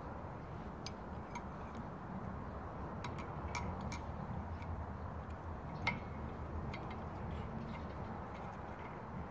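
Scattered light metallic clicks and ticks from a two-arm bearing puller being handled and set on a shaft to pull off a ball bearing, with one sharper click about six seconds in, over a steady low background hum.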